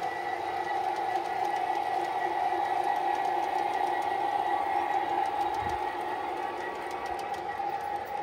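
Model diesel-locomotive train running past with a steady mechanical whine from its motors and gearing. Near the end, quick wheel clicks come in as the container cars roll over the rail joints.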